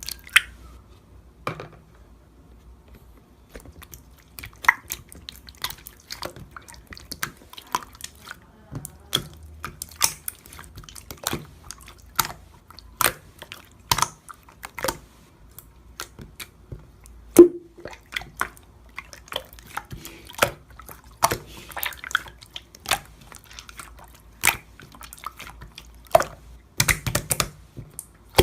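Clear slime being pressed and stretched by hand, giving wet popping clicks at irregular intervals, about one or two a second, with a louder pop about seventeen seconds in.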